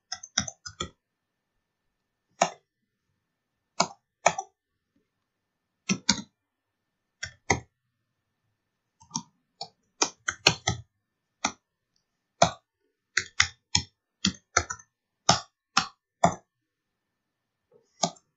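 Computer keyboard keystrokes: single key presses and short quick runs of typing, with pauses of a second or more between them.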